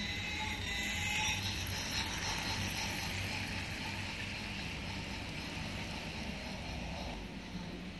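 Toy train running past on plastic track, a mechanical rattle that is loudest from about one to three and a half seconds in, then settles to a steadier, quieter run.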